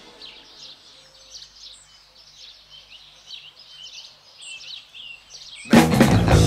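Faint, rapid high chirps and twitters, bird- or insect-like, then loud drum-driven music cuts in near the end.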